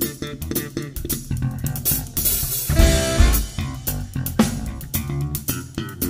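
Live jazz band playing instrumentally, with no singing: electric guitar over electric bass and a drum kit keeping time, and a loud cymbal wash about two to three seconds in.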